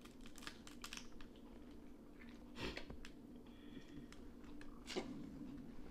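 Faint, scattered clicks and crackles of steamed blue crab shells being cracked and picked apart while eating, over a low steady hum.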